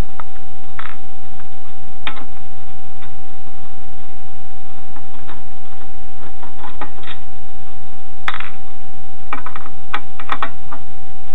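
Screwdriver working the fan screws out of a computer power supply's metal casing: scattered small clicks and scrapes of the bit against the screws and sheet metal, bunched together near the end. A steady faint tone hums underneath.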